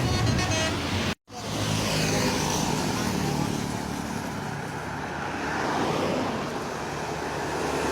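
Road traffic noise: engine hum and tyre noise from vehicles on the road, swelling and fading over several seconds. The sound cuts out for an instant just after a second in.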